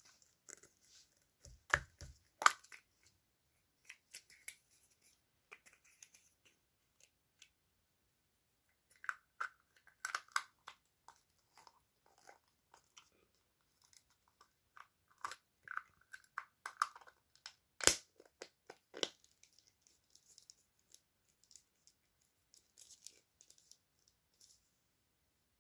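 Hands unwrapping and fiddling with a small collectible toy: scattered crinkling and tearing of its wrapping, with a few sharp clicks, the loudest about two seconds in and again about two-thirds of the way through.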